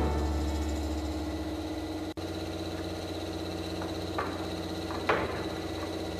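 Two short knocks of a wooden stair board being set against a concrete step, about four and five seconds in, over a steady background hum.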